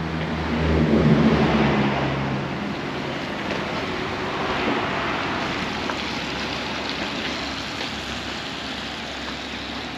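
RV engine running with a steady hum, loudest about a second in, giving way after a couple of seconds to steady road noise as it drives on under the low bridge.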